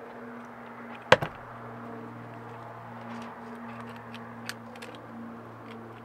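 Steel parts of a greasy Porsche 944 Turbo CV joint being twisted apart by hand: one sharp metallic clack about a second in, then a few light clicks, over a steady low hum.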